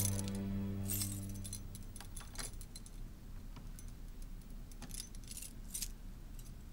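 Light metallic jingling: scattered, irregular high clinks and tinkles, while sustained music fades out in the first second or two.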